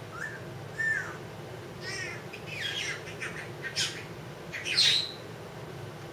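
Congo African grey parrot calling: a few short whistles, then a series of harsher squawks, the loudest about five seconds in.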